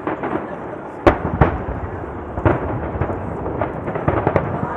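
Aerial fireworks shells bursting in quick succession over a continuous rumble and crackle. There are several loud bangs, the strongest about a second in, followed by a rapid run of smaller pops near the end.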